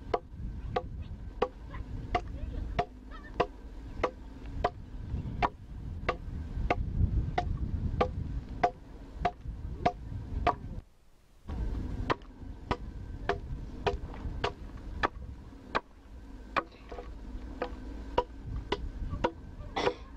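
Iron-bladed adze chopping into a block of wood, steady repeated strikes about three a second as a mask is roughed out. A steady low hum runs underneath, and the sound drops out briefly about halfway through.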